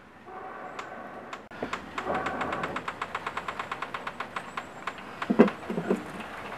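A fast, even run of sharp clicks for a few seconds, then a few clunks near the end as a metal kettle is set down on a clay stove over burning coconut shells.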